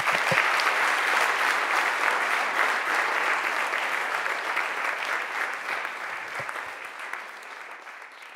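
Audience applauding after a talk, the clapping gradually fading toward the end.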